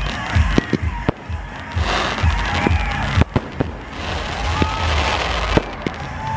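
Aerial fireworks going off: a rapid series of sharp bangs from bursting shells, with stretches of crackling hiss in the middle.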